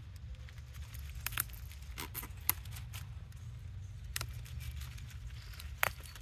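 Leafy green stems being picked and handled by hand: scattered small snaps and rustles at irregular intervals over a low steady rumble.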